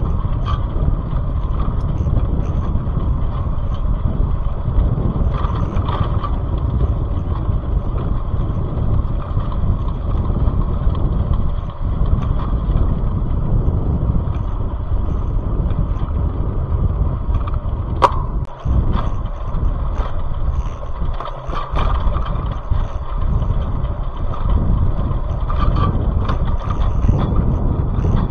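Steady low rumble of road and wind noise from a moving vehicle, with one sharp click about 18 seconds in.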